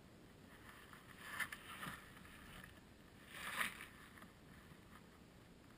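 Quiet outdoor background hiss with two brief, soft rustling swells, about one and a half and three and a half seconds in.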